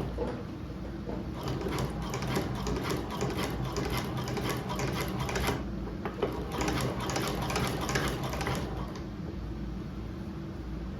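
Hand-cranked manual cobbler sewing machine stitching leather, its needle mechanism clacking in a quick, even rhythm. It runs in two bursts with a short pause between them and stops near the end.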